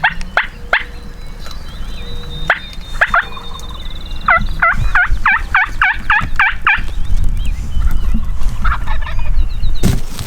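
Wild turkey calling: a few sharp single notes, then a fast run of about nine looping notes from about four seconds in. Low wind rumble on the microphone underneath.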